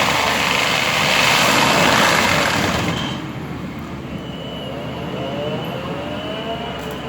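Bobcat skid-steer with a mulcher head grinding wood: a loud, dense grinding noise for about the first three seconds. Then the machine runs on more quietly, with a whine that rises in pitch several times.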